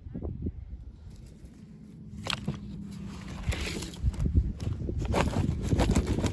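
Hands handling toy packaging and dolls: irregular rustling, crinkling and small clicks, getting louder about two seconds in.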